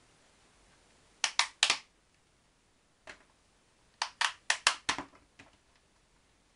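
Sharp dry clicks and crackles from hands working an orchid's root ball and its plastic pot: three quick clicks, a single one, then a quick run of five, trailing off.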